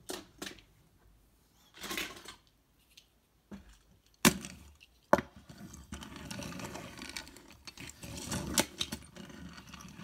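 Toy cars being handled and knocked together: scattered clicks and clatter, with two sharp loud knocks about four and five seconds in, then a few seconds of rustling and clicking handling noise.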